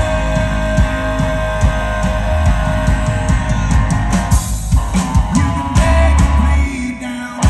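Live rock band with electric guitars, bass guitar and drum kit playing an instrumental passage between sung lines. A long held note sustains over the steady drum beat through the first half, then fades about four and a half seconds in.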